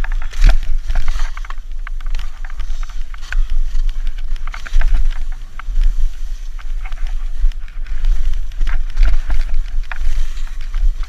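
Wind buffeting an action camera's microphone as a low, uneven rumble, with skis hissing and scraping irregularly through snow.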